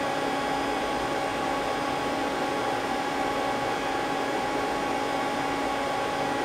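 Steady machine hum with a few fixed tones from a powered-up Mazak CNC lathe standing idle, its fans and pumps running while the control only plays a toolpath check and nothing is being cut.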